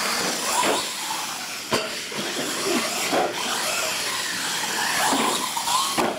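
Radio-controlled monster truck driving hard on a concrete floor: its electric motors whine, rising and falling with the throttle, over a steady hiss of gears and tyres, with a couple of sharp knocks about two and three seconds in.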